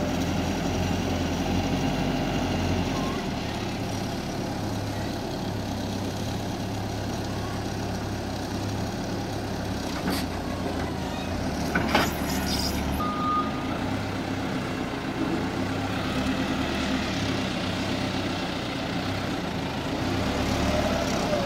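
Caterpillar TH63 telehandler's diesel engine running steadily, its speed shifting now and then as it handles crates of roof tiles. There are a couple of sharp knocks, about ten and twelve seconds in, and a short beep just after.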